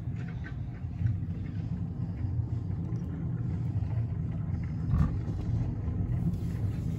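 Car engine idling, heard from inside the cabin as a steady low rumble, with a brief knock about five seconds in.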